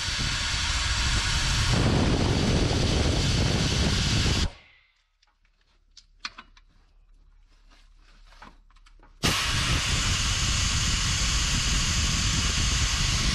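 Pneumatic air ratchet running in two bursts of about four to five seconds each, a hissing whir that starts and stops abruptly, backing out a bolt on the old exhaust bracket. Faint clicks of handling come between the bursts.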